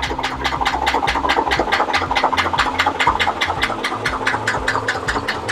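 1972 Cadillac 472 cubic-inch V8 running at low speed with a loud, even knock about six times a second over a low rumble. The knock comes from a connecting rod that has come off the crankshaft.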